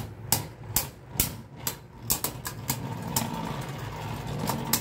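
Two Beyblade spinning tops whirring in a plastic stadium and clashing, with repeated sharp clacks at irregular intervals over a steady spinning whir.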